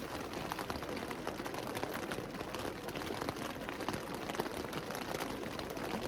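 Wood campfire crackling, with many small irregular pops over a steady hiss.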